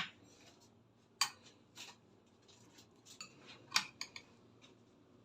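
Kitchen utensils clinking against dishes: a handful of short, sharp clinks, the loudest at the very start, about a second in, and near four seconds.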